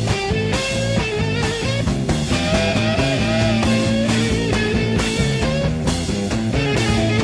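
Live psychedelic blues-rock jam: electric guitar playing a lead line with bent notes over bass and drums.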